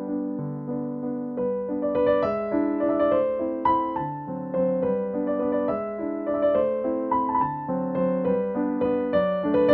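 Background piano music: a gentle melody of single notes over held chords, with higher notes joining about two seconds in.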